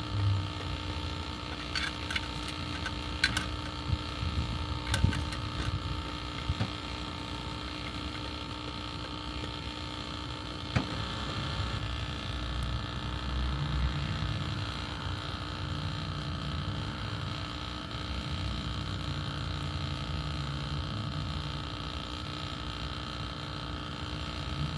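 A steady machine hum, with a few light clicks and taps of a screwdriver on a sheet-metal cover plate in the first several seconds and another click near the middle.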